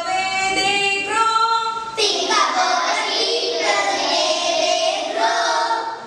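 Young girls singing a song together, with long held notes.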